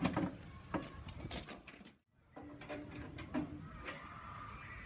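Sheet-metal side panels of a miniature diesel locomotive being unlatched and lifted off: a run of knocks and clunks, the loudest at the start, broken off by a cut about two seconds in and followed by fainter knocks.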